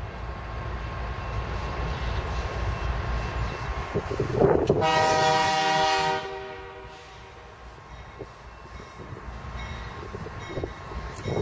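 Canadian Pacific freight train's diesel locomotive approaching, sounding one horn blast of about a second and a half about five seconds in, over the low rumble of the engines.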